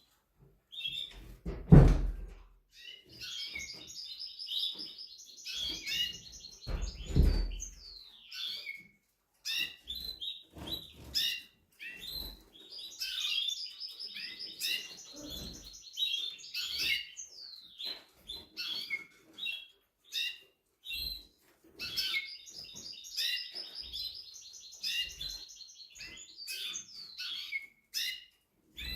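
Timbrado (Spanish song canary) singing: three long rolling trills with short chirps between them. Two sharp thumps come in the first eight seconds, the first the loudest sound.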